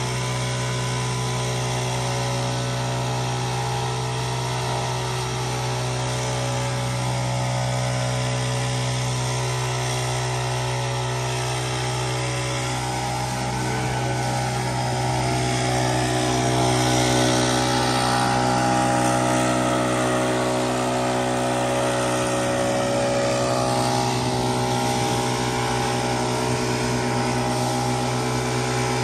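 Gas-engine backpack leaf blowers running at steady high throttle, a constant engine drone with the rush of blown air, growing a little louder around the middle.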